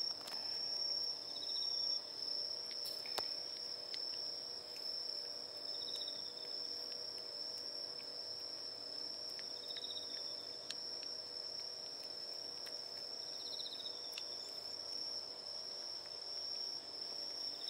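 Crickets singing at night: one steady, high continuous trill, with a second insect's short pulsed chirp about every four seconds. A few faint ticks come from a cat eating wet food off a plate.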